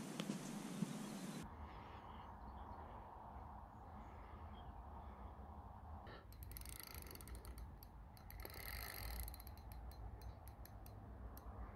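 Fishing reel clicking and ratcheting in runs of rapid clicks, starting about halfway through, as a hooked fish is played on a hard-bent rod. A low rumble of handling noise runs underneath.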